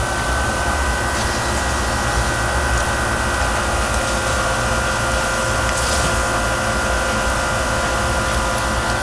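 Lawn spray sprinklers spraying water with a steady hiss, over a constant machine hum carrying a faint high whine.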